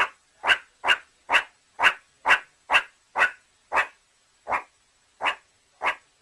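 A dog barking over and over, short sharp barks about two a second, spacing out a little toward the end.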